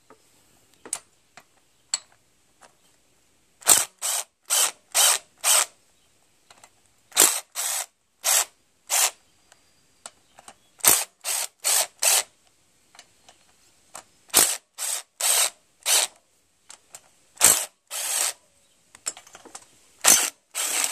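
Black+Decker cordless impact driver loosening cylinder-head bolts in short trigger pulls: groups of two to five brief bursts every few seconds, with light clicks between them.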